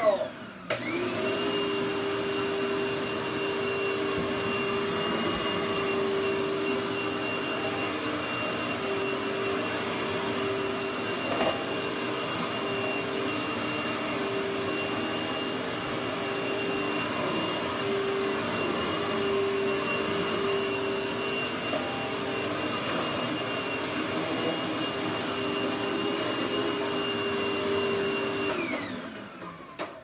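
Hoover WindTunnel Supreme upright vacuum cleaner switched on about a second in, running steadily with a constant whine as it picks up grass clippings from carpet. Near the end it is switched off and the motor winds down with a falling pitch.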